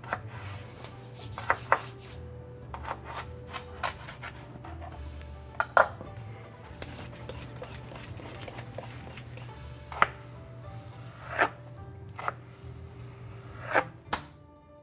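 Kitchen knife cutting vegetables on a plastic cutting board: about seven sharp knocks of the blade hitting the board, scattered through, with quieter scraping and rubbing between them. Soft background music runs underneath.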